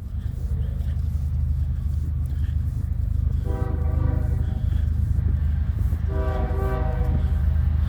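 BNSF diesel locomotive horn sounding two blasts of about a second each, a chord of several tones, over the steady low rumble of the approaching locomotives of a loaded coal train.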